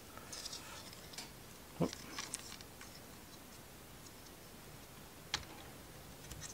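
Small model-kit parts being handled and fitted by hand: a few faint clicks and taps. There is a duller knock about two seconds in and a sharp click near the end.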